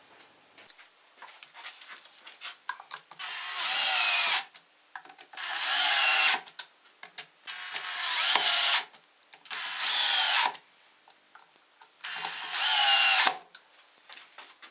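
Cordless drill driver driving screws through a motor's steel mounting flange into a plywood base: five runs of about a second each, the drill's whine rising as it spins up, with small handling clicks in between.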